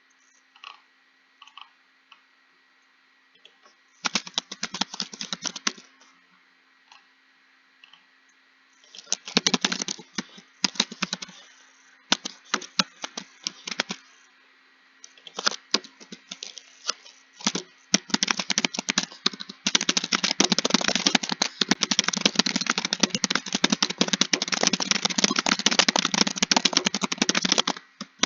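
Computer keyboard being typed on, with fast runs of key clicks broken by short pauses, then a long unbroken run of rapid typing in the last third.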